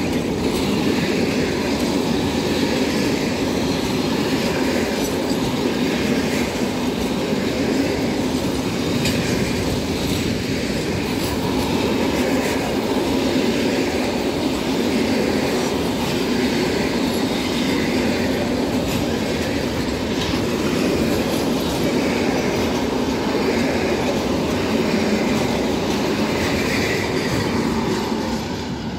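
Covered freight wagons rolling past close by at steady speed. Their wheels give a continuous rumble with repeated clicks over the rail joints. The sound starts to fade near the end as the last wagon goes by.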